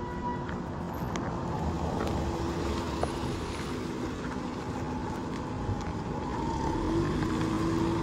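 A car driving slowly past close by on an unpaved road, its engine and tyres heard over other traffic. The engine grows a little louder near the end.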